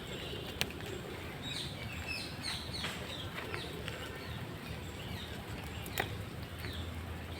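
Small birds chirping outdoors, a scatter of short chirps mostly in the first few seconds, over a steady hiss of monsoon rain, with a couple of sharp clicks.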